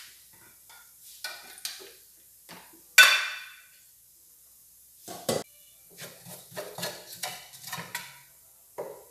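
Kitchen clatter of dishes and pots. A loud clank rings about three seconds in and a hard knock follows about two seconds later, then a quick run of light knocks and scrapes as a wooden spoon stirs garlic in an aluminium pot.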